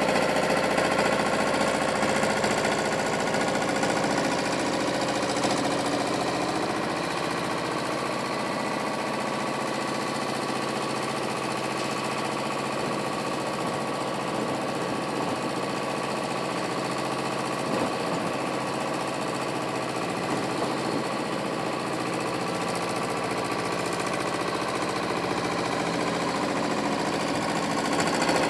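Diesel engines of an Ursus C-4011 tractor and an O&K front loader running at a steady speed, with a rapid knocking beat.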